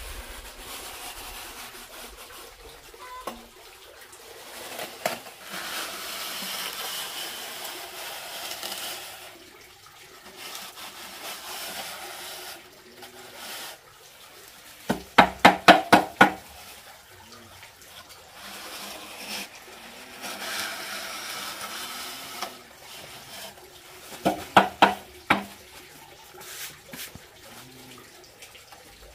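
Steel trowel spreading and smoothing wet cement render on a brick wall, a wet scraping hiss that comes and goes. Twice, about halfway through and again near the end, a quick run of six or seven sharp taps, the loudest sounds.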